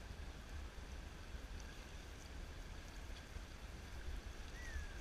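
Shallow rocky mountain creek running steadily over stones, with a low rumble underneath. A short falling whistle is heard near the end.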